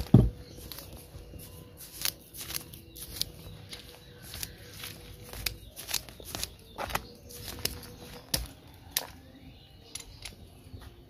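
Thin metal root pick scratching and raking through potting soil and a dense mat of fibrous roots: irregular scrapes, about one or two a second, with a single thump right at the start.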